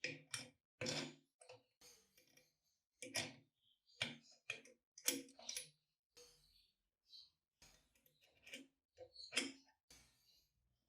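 Irregular light clicks and knocks of small parts being handled and fitted together by hand, about a dozen short strikes with slight ringing.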